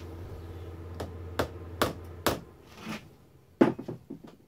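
A soft-faced mallet tapping a steel milling vise about six times to nudge it square with the mill's travel while it is being trammed, the last tap the loudest. A steady low hum underneath stops about two seconds in.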